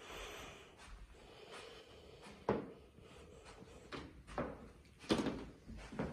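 Soft, irregular thuds and knocks from someone walking through empty carpeted rooms with a handheld camera: footfalls and handling bumps, a few of them louder.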